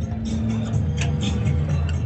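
Music playing with a heavy, steady bass.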